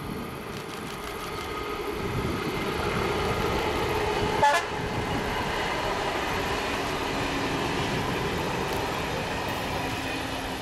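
A train passing close by with a steady rolling rumble, and one short toot of its warning signal about four and a half seconds in.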